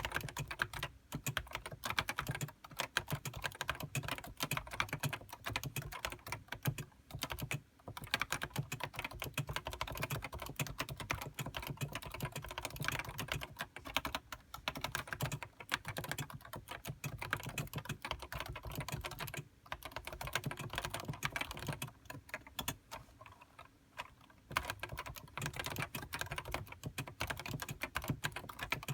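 Continuous typing on a Topre Realforce HiPro keyboard, whose electrostatic capacitive rubber-dome switches produce a dense run of key clacks. The typing stops briefly three times, about a third of the way in, two-thirds of the way in, and again shortly after.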